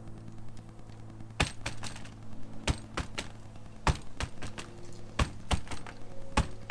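Sharp, irregular clicks and snaps in small clusters, from the stretched scooter tire's bead creeping onto the rim as it seats. A steady low hum runs underneath.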